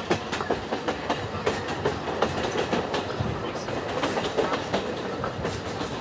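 Alishan Forest Railway narrow-gauge train running, heard from inside the carriage: a steady rumble of wheels on rail with many irregular clacks and rattles.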